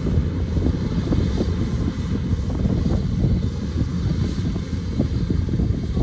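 Kubota DC-105X rice combine harvester running: a steady, low diesel engine drone.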